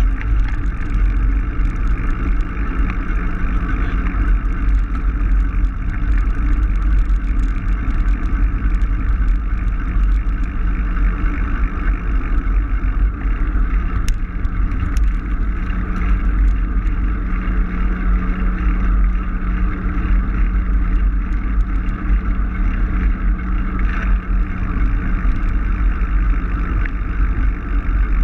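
Steady wind rumble on the microphone with tyre and rolling noise from a bicycle being ridden, plus a faint steady hum underneath.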